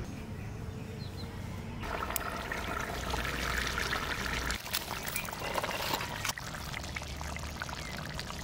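A kadai of chicken and potato curry simmering, bubbling with many small crackles, starting about two seconds in.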